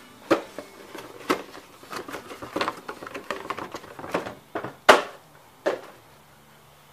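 Handling noise: irregular clicks and knocks as a cardboard air filter box is picked up and moved around the engine bay. The loudest knock comes about five seconds in, and it is quiet for the last second or so.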